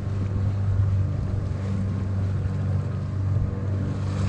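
Small tour boat's engine running at a steady low speed: a constant low drone.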